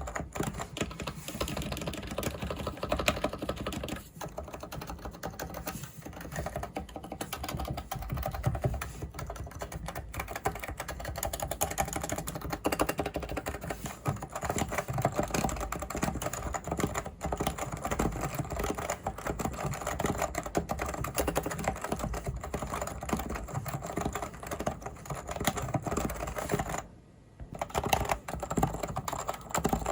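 Continuous fast typing on a Leopold FC660C mini keyboard with Topre electro-capacitive (contactless) switches: a steady run of keystrokes with a brief pause near the end.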